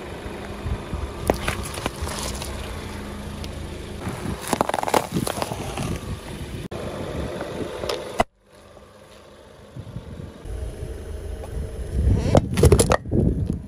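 A car tyre slowly rolling over and crushing a series of objects, over the low steady running of the car: squashing oranges and crunching wrapped hard candies with crackling snaps, then a stainless steel mug crumpling with a burst of loud cracks near the end.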